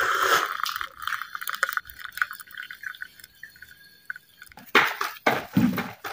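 Hot milky tea (chai) poured from a steel pan into a ceramic mug: a splashing stream that thins to a trickle and drips over about four seconds. Nearly five seconds in come several loud, sudden knocks and rustles of handling.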